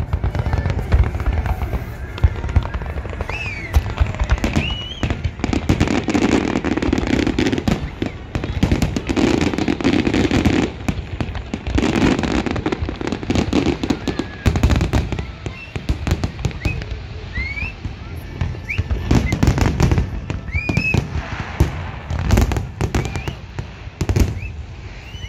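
Fireworks display going off without pause: a dense run of booming bursts and crackling, with short high whistles here and there.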